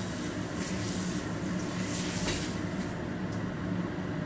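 Steady low hum of a kitchen fan, with water running from the tap into the sink that cuts off about three seconds in, and a few light clatters of a pan in the sink.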